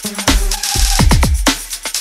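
Electronic drum and bass music with fast drum hits and a deep bass line; no machine sound stands out.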